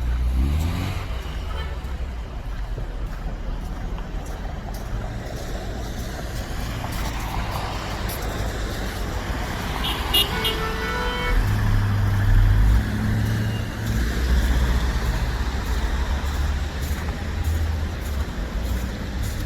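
Street traffic: motor vehicles passing with a steady deep engine rumble that swells in the second half. A brief high-pitched tone sounds about halfway through.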